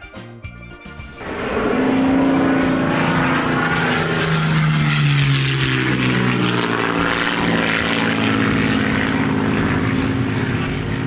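Propeller aircraft engine drone that swells in about a second in and holds loud and steady, its pitch sinking around the middle, after a moment of music.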